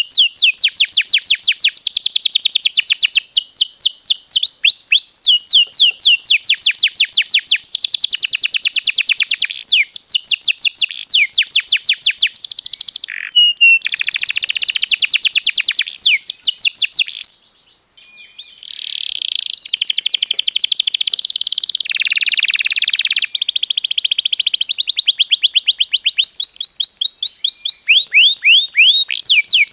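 Domestic canary singing a long, fast song of rapid trills made of short falling-pitch notes, with a brief pause a little past halfway.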